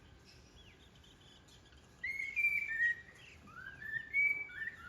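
Pet parrot whistling a learned tune: a run of about six clear whistled notes, some gliding upward and some held, starting about two seconds in, with faint short chirps before them.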